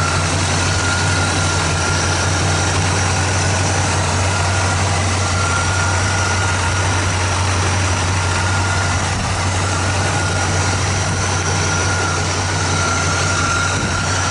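A 1965 Pontiac GTO's 389 V8 with Tri-Power triple carburetors idling steadily, heard up close in the open engine bay. A faint high whine comes and goes over the idle.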